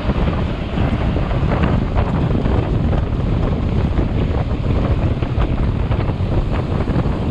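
Steady wind buffeting the microphone of a mountain bike riding at speed on a paved road, with tyre noise and faint scattered clicks from the bike underneath.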